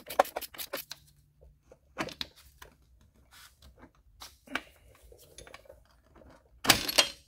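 Scattered metal clinks and clicks of a wrench and the rear shock absorber's mounting bolt as the bolt is worked loose and handled, with a quick run of clicks near the end.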